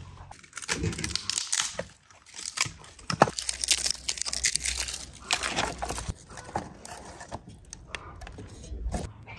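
Dry wood being torn and split by hand into thin kindling slivers: a run of sharp cracking and splintering.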